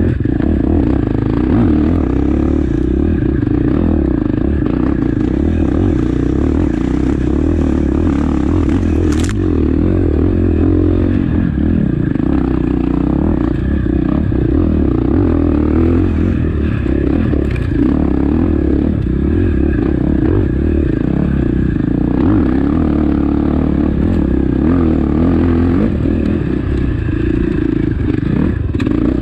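KTM 450 XC-F single-cylinder four-stroke enduro engine running under the rider's throttle, its pitch wavering only a little, heard from on the bike. A single sharp click about nine seconds in.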